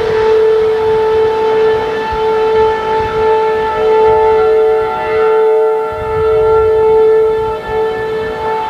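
Federal Signal Thunderbolt outdoor warning siren sounding a steady tornado warning: one held pitch with a strong overtone and several fainter ones, swelling and fading slightly as the rotating horn sweeps round.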